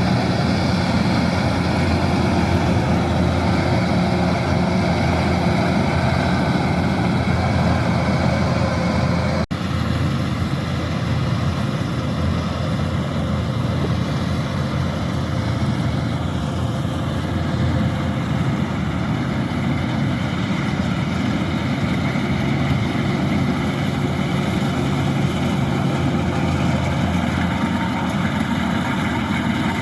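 Kubota DC-108X rice combine harvester's diesel engine running steadily under work, with a brief dropout about nine and a half seconds in.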